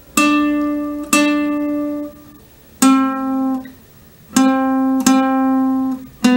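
Classical guitar playing a solo melody slowly, one single plucked note at a time: about six notes, each left to ring for up to a second before the next.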